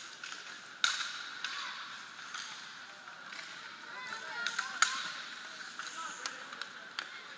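Ice hockey game: sharp cracks of sticks striking the puck, the loudest about a second in and again near five seconds, among lighter clacks and skate scrapes, over a steady hum of indistinct voices in the rink.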